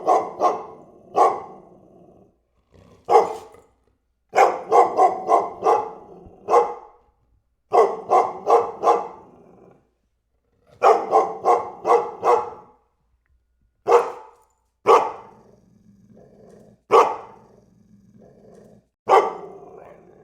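German Shepherd barking in quick volleys of three to six barks with short pauses between. Later it barks singly every second or two, with a low growl running between the barks.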